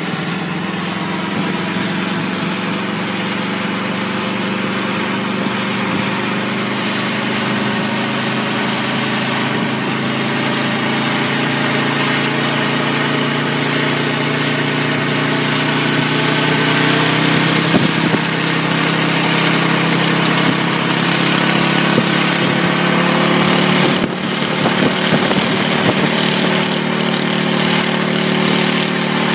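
Engine of a homemade helicopter running steadily, its pitch and loudness slowly rising through the second half as the rotor is brought up to speed.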